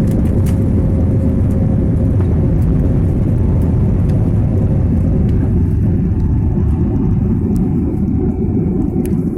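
Passenger aircraft cabin noise during takeoff: a loud, steady low rumble of engines and airflow, thinning a little in the upper range about halfway through.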